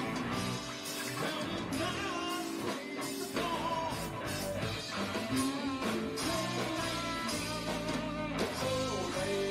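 Live rock band playing: a singer over electric guitar, bass guitar, keyboards and drums.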